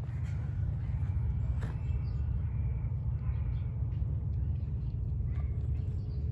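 Steady low outdoor rumble, with a few faint clicks and knocks over it.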